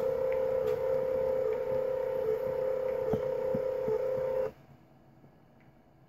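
NEMA 17 stepper motor turning the threaded-rod lead screw of a homemade CNC's X axis at slow speed, a steady whine. It cuts off abruptly about four and a half seconds in as the carriage ends its one-inch move.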